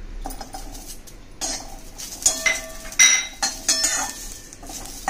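Garlic cloves tipped into an aluminium kadhai of dry-roasting green chillies, followed by a run of metal knocks and scrapes on the pan. The pan rings after the sharper knocks, loudest about three seconds in.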